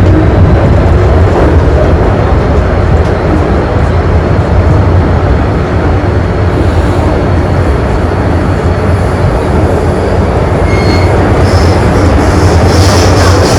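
MTR M-Train electric multiple unit running at speed, a steady loud rumble of wheels on rail and traction gear heard from inside the carriage. Brief high-pitched wheel squeals come in near the end.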